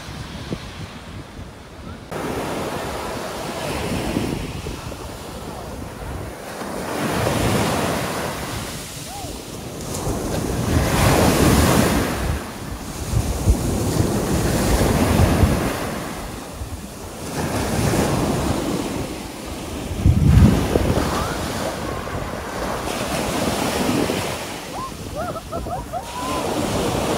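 Sea waves breaking and washing ashore, the surf swelling and fading every few seconds, with wind gusting on the microphone.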